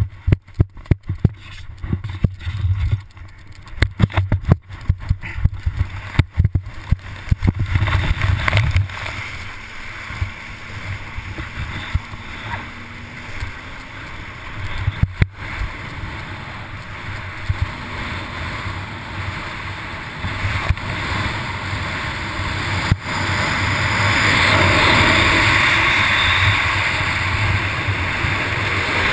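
Rushing water and wind buffeting on a camera towed fast across the sea through spray and wake. For roughly the first eight seconds it is broken by many sharp knocks and bumps, then it settles into a steady rush that grows louder about three-quarters of the way through.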